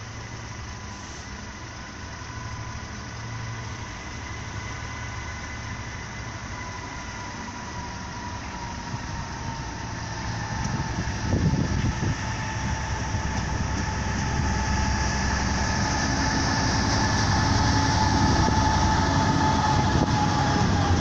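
Freightliner Class 66 diesel locomotive, a two-stroke V12, approaching with a container train, its engine and wheel noise growing steadily louder over the second half. A steady high-pitched tone sounds throughout, dipping slightly in pitch.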